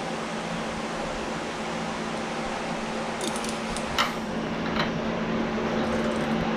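Steady fan-like mechanical hum, with a few light sharp clicks about three, four and five seconds in as metal fittings are handled and threaded into the FASS fuel pump's ports.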